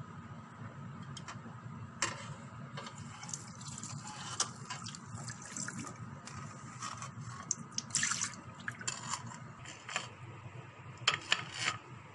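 Sago pearls being rinsed by hand in a stainless steel mesh strainer: water splashing in irregular bursts, loudest about eight seconds in and again near the end.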